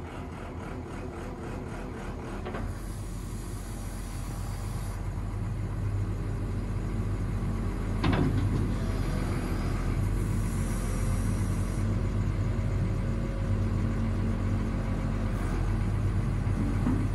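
1997 Samsung MX202W wheel excavator's diesel engine running steadily while the arm and bucket are worked hydraulically, getting louder over the first half. A high hiss comes twice, and there is one sharp knock about eight seconds in.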